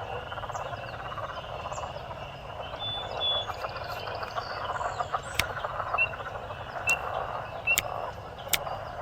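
A steady chorus of frogs calling in a marsh, with four short, sharp high calls or clicks in the second half.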